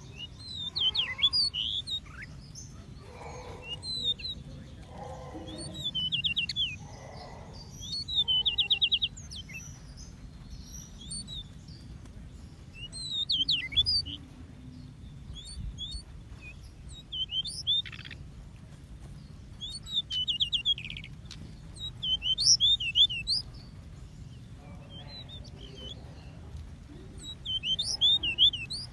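Small aviary songbirds singing short bursts of quick chirps every few seconds, a couple of them ending in a fast trill, over a steady low background rumble.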